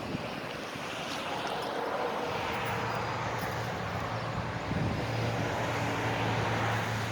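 Road traffic going past: tyre hiss that swells and fades, with a steady low engine hum from about two seconds in.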